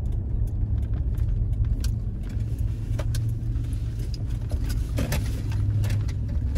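Cabin noise of a Toyota 4Runner on the move: a steady low rumble of engine and road, with light clicks and rattles over it.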